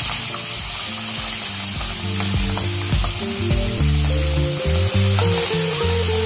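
Peeled shrimp frying in hot melted margarine in a pan, a steady sizzle, with a few light taps of a spatula in the pan. Background music of held notes comes in under it and is louder in the second half.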